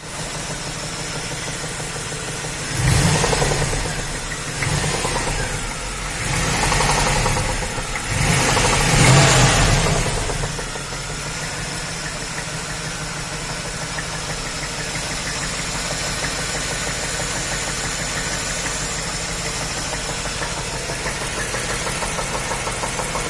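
Chevy 350 LT1 V8 engine running with a knocking and squeaking, the sound of a spun rod bearing. It idles, is revved four times from about three seconds in to about ten seconds in, then settles back to idle.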